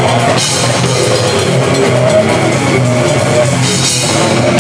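Grindcore band playing live and loud: drum kit and distorted guitars, with cymbal crashes about half a second in and again near four seconds.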